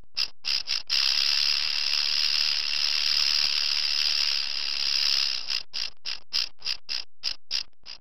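Rattlesnake shaking its tail rattle: a few short rattles, then one continuous buzz lasting about four and a half seconds, breaking up near the end into a string of about ten short rattles.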